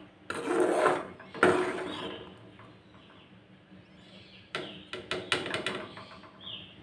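Steel ladle scraping through thick gravy and knocking against the side of a metal kadai while stirring: a scrape about half a second in, a sharp knock, then a run of short clicks and scrapes near the end.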